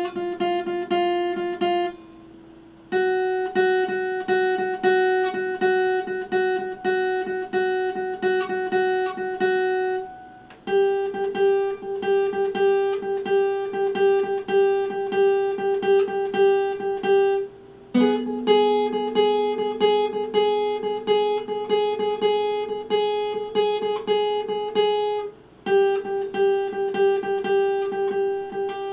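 Epiphone acoustic guitar strummed with fast, even strokes, holding one chord at a time, with a short break and a chord change about every seven or eight seconds.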